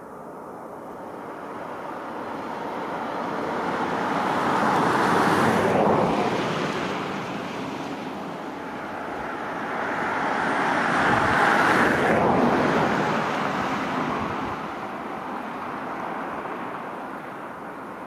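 Two cars passing by on a nearby road one after the other, a steady tyre-and-road hiss that swells and fades each time, loudest about six and about twelve seconds in.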